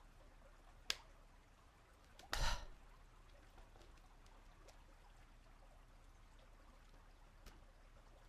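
A cardboard document folder being handled and opened against quiet room tone: a sharp click about a second in, then a short papery rustle about two and a half seconds in.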